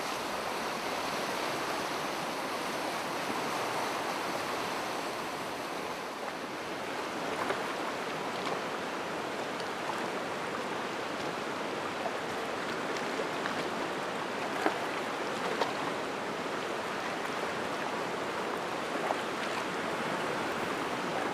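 Fast mountain river rapids rushing steadily over rocks, with a few faint clicks.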